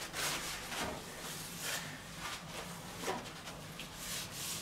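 Faint handling sounds at an open oven: a few soft knocks and rustles, with a paper towel rubbing on the oven door's glass near the end.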